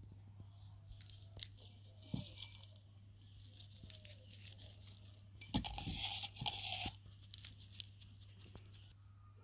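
Dried herbs crumbled and rubbed between fingers over a clay pot: a dry crackling rustle with a few small clicks, loudest for about a second and a half around the middle.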